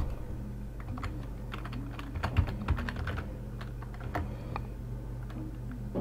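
Typing on a computer keyboard: irregular clicking keystrokes, thickest in a quick run a little past two seconds in, over a steady low hum.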